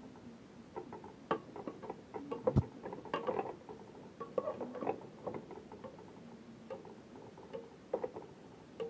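A spoon scraping and clicking against a metal pot as vegetables are tossed and stirred, with irregular knocks and scrapes and one sharper knock about two and a half seconds in.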